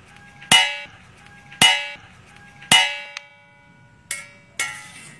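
Metal bowl or pan struck five times, each strike ringing on: three loud clangs about a second apart, then two softer strikes close together near the end.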